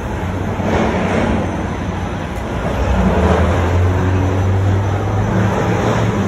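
City street traffic noise: vehicles running past with a steady low hum that swells about a second in and again from about three seconds.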